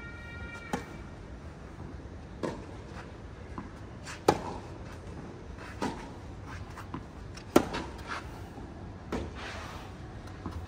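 Rackets striking a ball back and forth in a rally: six sharp hits, one about every second and a half to two seconds.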